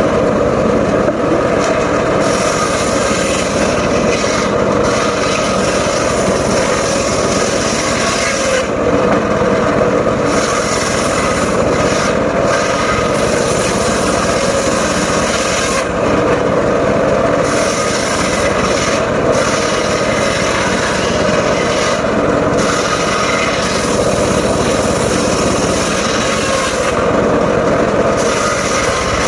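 Portable circular sawmill running steadily, its blade sawing through wood. The high hiss of the cut drops away briefly a few times.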